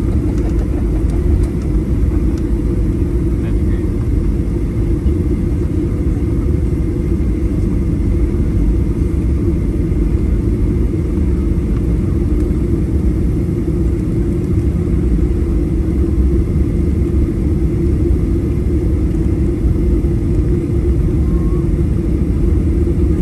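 Steady low rumble of cabin noise inside a Boeing 737-800 taxiing after landing: the jet engines' drone mixed with the wheels rolling over the pavement, holding an even level throughout.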